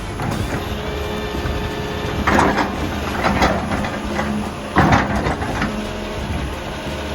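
Heavy diesel earthmoving machine running steadily under load, with three loud crunching bursts a second or so apart, typical of stumps and roots being torn out.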